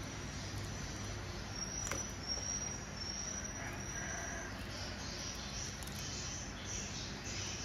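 Insects chirping in a high-pitched trill that comes and goes in repeated stretches. A single sharp crack comes about two seconds in as a cooked crab shell is broken apart.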